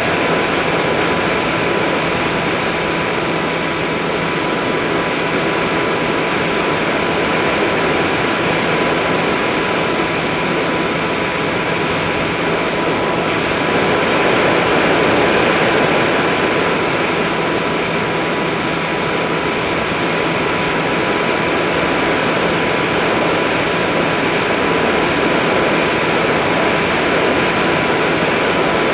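Steady rush of air and electric motor drone, with a constant whine, picked up by a camera riding on an Easy Star RC motor glider in flight. It grows slightly louder about halfway through.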